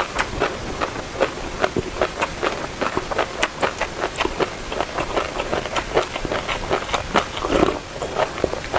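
Close-miked passion fruit eating: wet chewing of the pulp with many small, irregular crunching clicks as the seeds are bitten.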